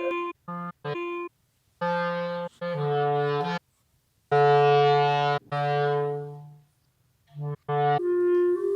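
Solo clarinet playing a run of low notes, chopped into short pieces that cut off abruptly into silence. About halfway through one longer low note swells and then fades away, and near the end a higher note comes in.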